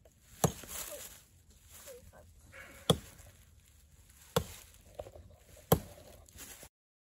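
A small hatchet chopping into a standing tree trunk: four separate strikes, a second and a half to two and a half seconds apart.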